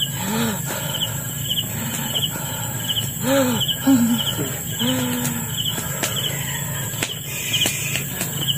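Crickets chirping in an even rhythm, about three chirps every two seconds, over a steady high insect hum. A person's voice makes a few short sounds in between.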